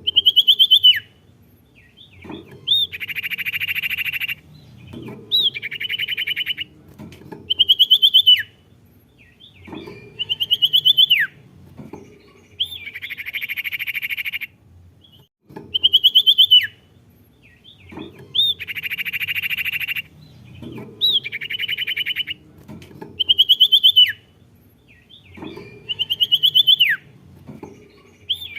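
Sirtu songbird singing the same phrase over and over, about every two and a half seconds: a sharp whistle that slides steeply down, then a fast buzzing trill about a second and a half long. A looped song recording of the kind played to a silent caged sirtu to set it singing.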